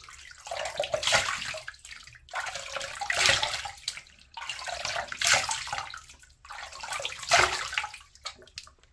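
Tap water running into a bathroom sink, with four splashing surges about two seconds apart, as water is scooped and splashed to rinse after a shave.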